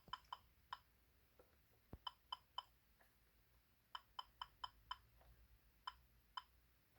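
Short electronic key beeps from a First Alert WX167 weather radio as its buttons are pressed to set the year, about a dozen quick beeps in small bursts.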